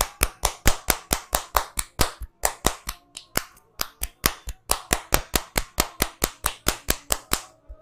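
Barber's hands striking the client in a rapid percussive massage: sharp clap-like slaps, about five a second, with a brief break about three seconds in, stopping suddenly near the end.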